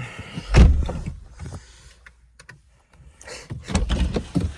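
A car door shutting with a heavy thump about half a second in, followed near the end by a cluster of knocks and rustling.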